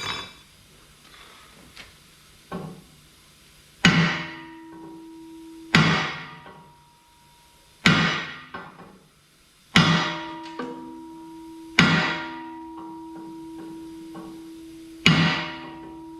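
Heavy hammer blows on steel, seven loud strikes about two seconds apart plus a lighter tap, each ringing on briefly with a metallic tone. They are driving a seized curvature plate on a jaw crusher back into place.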